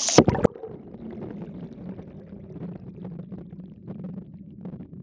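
Camera plunging into the river with a short splash about half a second in, then muffled underwater sound: a steady low hum with faint crackling and clicks.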